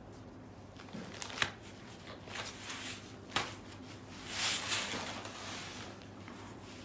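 Organza saree being unfolded and handled by hand on a table: the fabric rustles, with a few sharp ticks and one longer swish about two-thirds of the way through.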